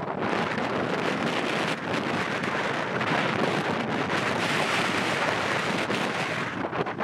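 Boeing 737-800's CFM56 jet engines running as the airliner rolls along the runway: a steady rushing roar that brightens about three seconds in, with wind buffeting the microphone.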